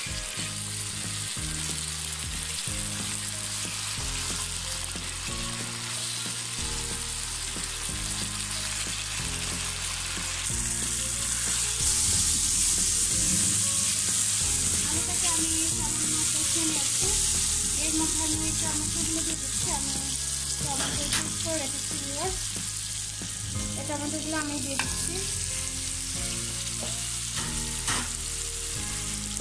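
Sliced potatoes sizzling in hot oil and spice paste in a nonstick wok, stirred and scraped with a wooden spatula as they fry down with the spices. The sizzle grows louder for several seconds about a third of the way in.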